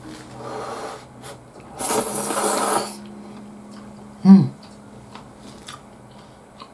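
Udon noodles being slurped up with chopsticks: a short slurp under a second in, then a longer, louder slurp lasting about a second, and a brief, louder throat sound from the eater about four seconds in.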